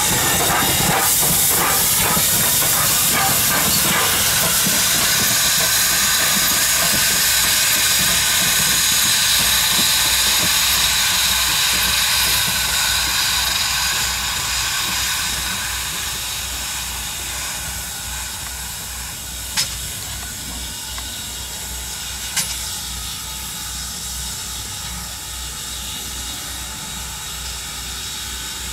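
Steam locomotive hissing loudly with escaping steam as it passes close by. The hiss eases off about halfway through as a locomotive approaches slowly, and two sharp clicks sound a few seconds apart.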